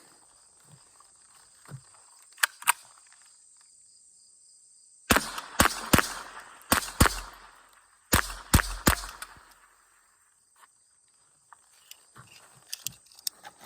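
Winchester Model 77 .22 long rifle semi-automatic firing about eight quick shots within four seconds, in two clusters, each crack trailing a short echo. A few light metallic clicks of the rifle being handled come before and after the string.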